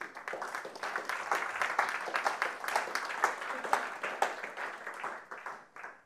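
Audience applauding at the close of a lecture: many hands clapping in a dense, even patter that dies away near the end.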